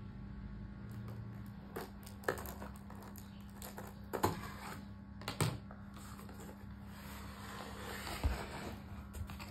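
A cardboard shipping box being opened with a box cutter: a few sharp clicks and taps, then scraping and rustling as the packing tape is cut and the cardboard flaps are pulled open, over a faint steady hum.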